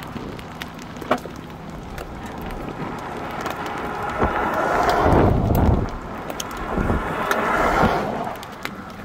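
Pickup trucks driving past on a wet, hail-strewn highway: tyre and engine noise swells and fades twice, the louder pass about five seconds in and another about seven to eight seconds in, over wind on the microphone and scattered sharp clicks.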